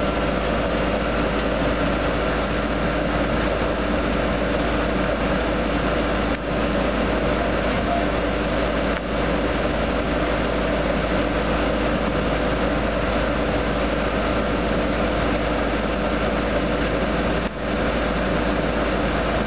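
Engines and machinery of a truck-mounted drilling rig and its mud-system power unit running steadily, an unbroken drone with a deep hum.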